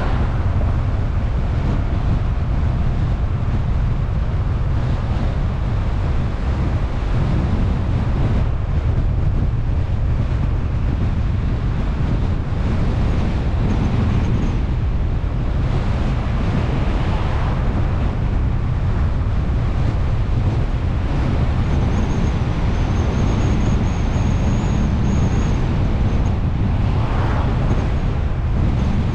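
Car driving along a road: a steady low rumble of road and engine noise, with wind buffeting the microphone. The noise swells briefly a couple of times.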